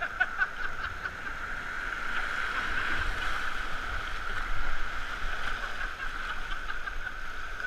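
Rushing whitewater of a river rapid, with waves splashing close against the camera on an inflatable canoe; the churning swells to its loudest about four and a half seconds in.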